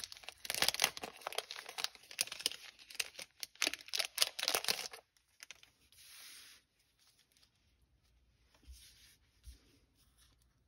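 A package of stickers being torn open by hand, its wrapping crackling and crinkling in quick sharp bursts for about five seconds. Then a few soft rustles as the stickers are handled.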